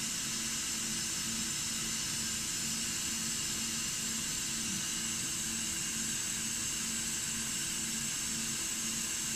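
Steady hiss with a faint low hum from a running Disco DAD3350 dicing saw.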